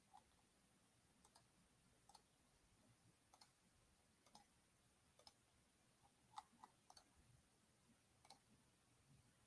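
Faint, irregular computer mouse clicks, roughly one a second, over near silence.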